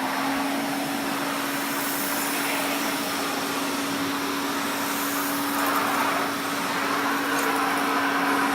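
Hoover Constellation 867A canister vacuum cleaner running steadily: a motor whine held at one pitch over an even rush of air.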